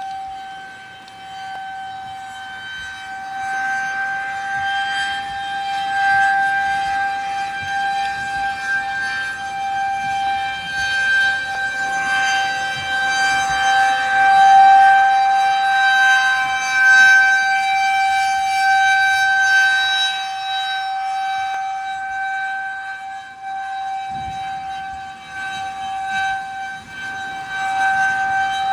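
Federal Signal 2001-130 rotating outdoor warning siren holding a steady wail at one pitch, swelling and fading in loudness as the horn turns, sounded as a severe-weather alert. With the mains power out it seems to be running on its DC battery backup.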